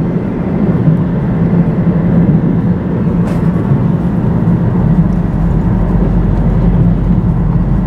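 Steady road noise heard inside a moving car's cabin: engine hum and tyre noise on a wet road, with a low, even drone.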